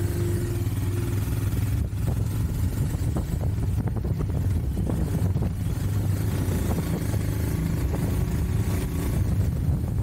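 Royal Enfield Himalayan sidecar outfit's single-cylinder engine running steadily under way, with wind and road noise.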